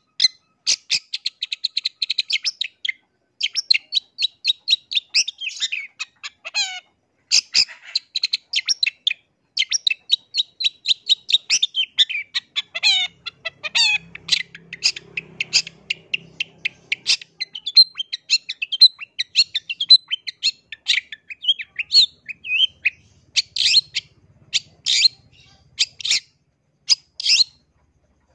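Long-tailed shrike singing vigorously: a fast, varied run of sharp, high repeated notes and rapid trills, changing pattern every second or two with only brief pauses.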